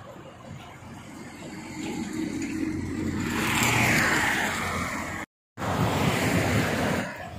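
Motorway traffic: a vehicle passes close by, its tyre and engine noise building to a peak about halfway through and then falling away. The sound drops out completely for a moment about five seconds in.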